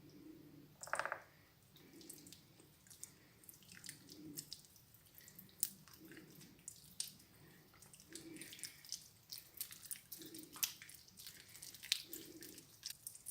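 Freshly made clear-glue slime being kneaded and stretched by hand: faint, irregular sticky squelches and small popping clicks.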